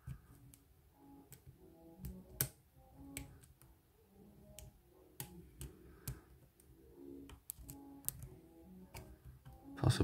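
Small, sharp metallic clicks and ticks, spaced irregularly, from a steel hook pick and tension wrench working the pins of a BKS oval cylinder lock during single-pin picking. Faint background music with short repeated notes plays underneath.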